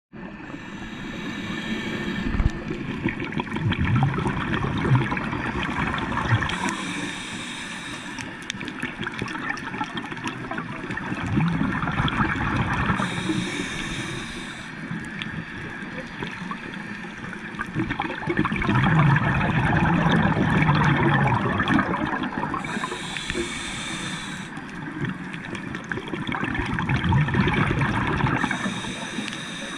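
Scuba diver breathing through a regulator underwater, about four slow breaths: rumbling bursts of exhaled bubbles, each followed by a short hiss of inhaling.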